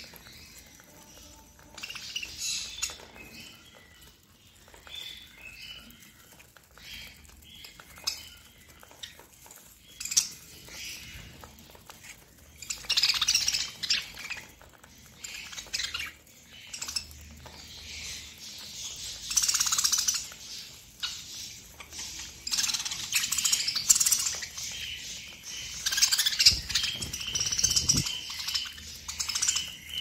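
A flock of budgerigars chirping and chattering, in irregular bursts with several louder stretches.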